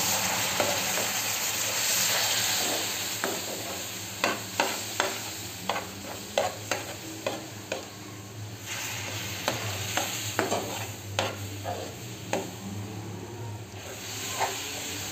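Hot sugar syrup poured into roasted semolina in a hot pan, sizzling and hissing as it hits, while a metal spoon stirs and clicks against the pan. The hiss dies down about nine seconds in, leaving the spoon's scraping and taps.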